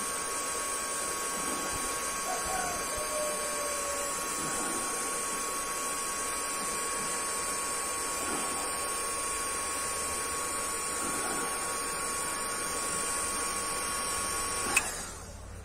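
Stearnel electric heat gun running, blowing hot air onto clear plastic: a steady hiss of air with a steady whine from its fan. It stops abruptly with a click near the end.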